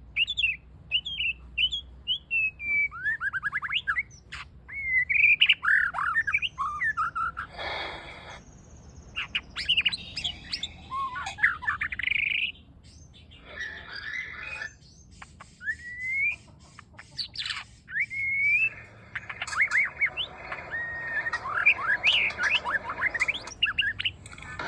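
White-rumped shama singing a long, varied song: rising and falling whistles mixed with quick chattering notes and a few harsher calls, with a fast run of notes near the end. The bird is young and still learning its song, working in imitated calls.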